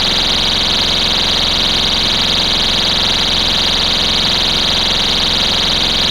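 STI Stopper pull-station cover's built-in warning horn sounding a loud, continuous shrill high tone, steady and unbroken.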